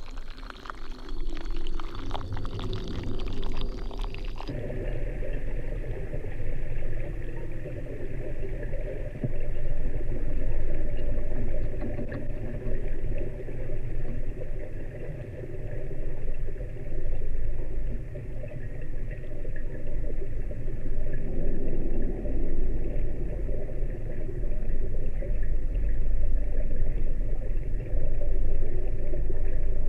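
Churning water heard through a hydrophone under a waterfall, cut off abruptly about four seconds in. A low, steady rumble with a droning hum follows, recorded in a drainage pipe.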